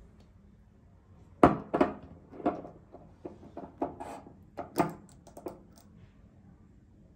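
A small glass dropper bottle knocks down onto a white sink counter, followed by a run of smaller clicks and knocks as its dropper cap is unscrewed and the dropper is lifted out.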